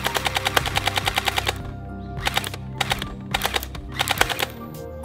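Electric airsoft gun (AEG) firing on full auto: a long burst of rapid, evenly spaced clicking shots, then several shorter bursts. Background music plays under it.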